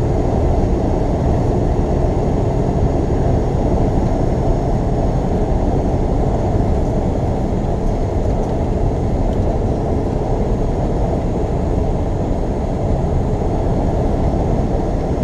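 Steady engine and tyre noise inside a semi-truck's cab at highway cruising speed, a constant deep drone with no changes.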